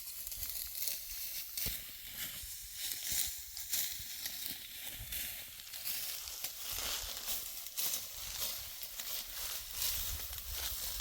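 Dry wheat stalks rustling and crunching in a dense run of crisp crackles, with a low rumble of wind on the microphone underneath.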